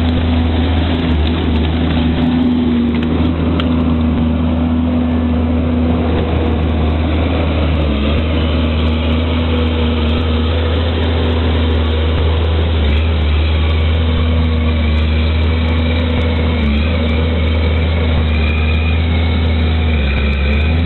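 An engine running steadily with a deep, even drone, and a faint higher whine joining about two-thirds of the way through.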